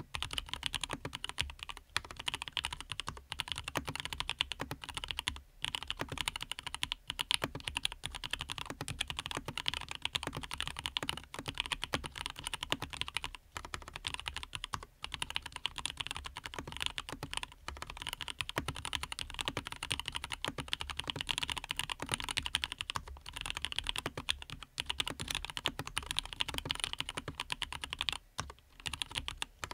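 Continuous fast typing on a Dreadnought custom mechanical keyboard fitted with lubed Everglide Aqua King linear switches: a dense, even stream of key clacks, broken by a few short pauses.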